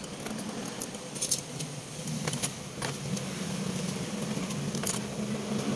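Scattered light metal clinks and clicks of a carburetor body, its small screws and a screwdriver being handled while the carburetor is taken apart, over a steady low hum.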